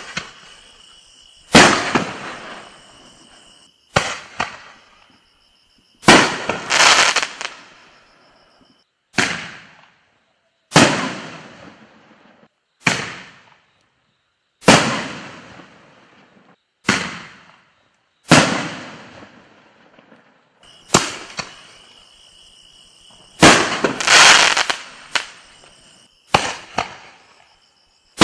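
Bright Star Super Nova 24-shell firework cake firing its shots one after another, a sharp bang every one to two seconds, some in quick pairs, each fading out over about a second.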